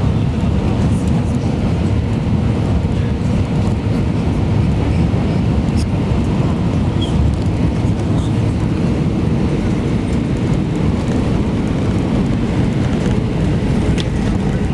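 Cabin noise inside an Airbus A320 on final approach and landing: a steady low rumble of engines and rushing air, with a faint steady hum.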